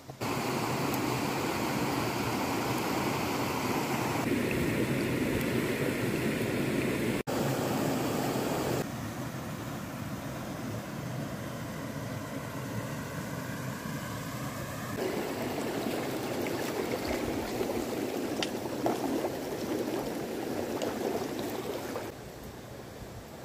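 Creek water rushing over rocks, a steady wash whose loudness and tone shift abruptly several times.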